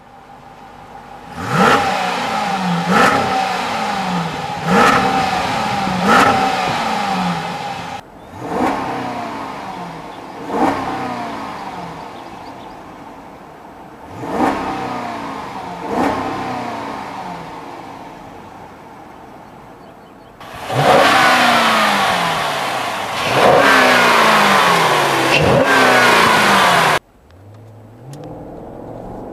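2011 Jeep Grand Cherokee Overland's engine and exhaust blipped by the throttle, each rev climbing fast and falling back to idle. The revs come in groups of four, two and two, first at the tailpipes and later from inside the cabin. Then comes a longer stretch of hard revving, which cuts off sharply near the end, and the sound builds again as the Jeep pulls away.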